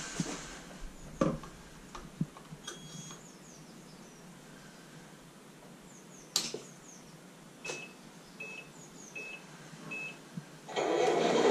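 Sharp clicks, then four short, high electronic beeps, evenly spaced about two-thirds of a second apart, from a radio-control model truck's electronics as its lights are worked. Near the end a louder, steady rushing noise starts.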